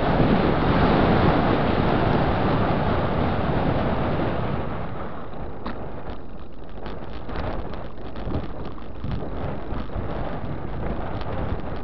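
Wind rushing over the camera microphone of a moving mountain bike. After about five seconds it eases, and the bike takes over, rattling with quick clicks as the tyres roll over a rough gravel path.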